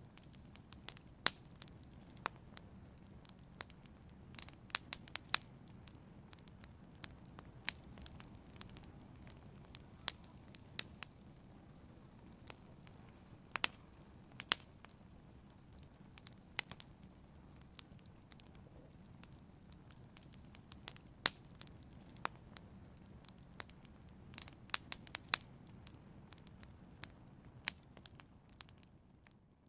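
Wood fire burning in a fireplace: irregular sharp crackles and pops from the logs over a low, steady rumble of flames, fading out at the very end.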